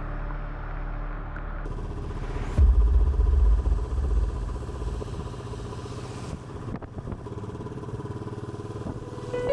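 A motor vehicle's engine running on the move, a steady drone with a loud low rumble about three seconds in.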